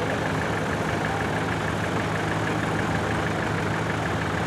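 Toyota Land Cruiser 100-series engine running steadily near idle as the 4x4 crawls slowly over a crest and down a steep dirt slope.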